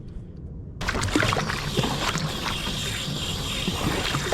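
Water splashing and rushing around a kayak, coming in abruptly about a second in, with many short clicking and scratching noises from a chest-mounted GoPro on the water.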